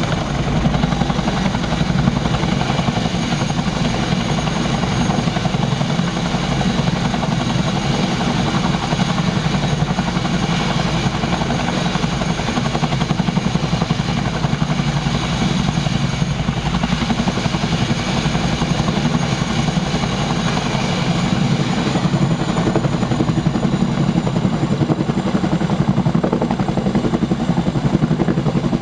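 Boeing Chinook HC4's tandem rotors turning and its twin turboshaft engines running, a loud, steady helicopter noise.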